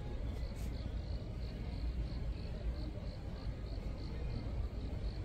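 A cricket chirping in a steady rhythm, about three chirps a second, over a low steady rumble.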